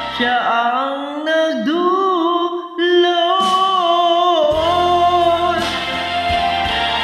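A woman singing a long, wavering held vocal line over a karaoke backing track. The backing's bass drops away near the start and comes back about two-thirds of the way through.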